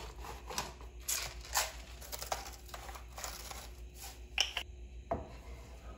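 Eggs and hash browns frying in a pan: a soft, irregular crackle with a few sharper crackles.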